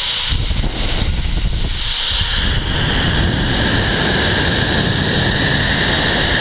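Steady rush of wind over an action camera's microphone on a fast zip-line ride, with a continuous high whir from the trolley pulleys rolling along the steel cable.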